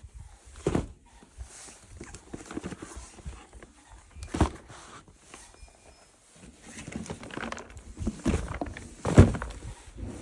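Irregular knocks and thuds with rustling between them, the sound of toys and packaging being handled.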